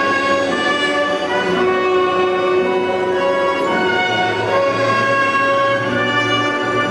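Orchestral music with strings and brass, slow sustained chords.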